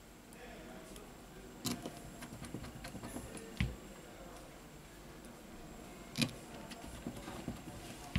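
Small clicks and taps of hands handling smartphone parts and tools during reassembly: four sharper clicks roughly two seconds apart, with fainter ticks between.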